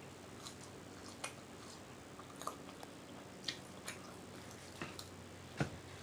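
Close-up mouth sounds of someone chewing french fries: scattered soft wet clicks and smacks, with one louder smack about five and a half seconds in.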